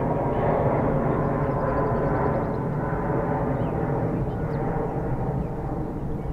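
Jet airliner engine noise, a steady rumble and rush that slowly fades.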